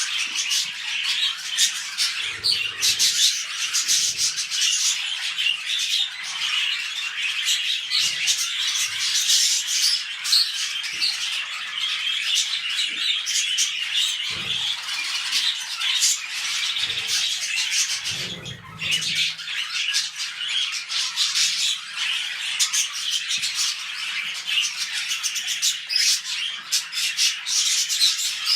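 Budgerigars chattering and squawking without a break, a dense stream of rapid chirps and warbles, with a few soft low thumps now and then.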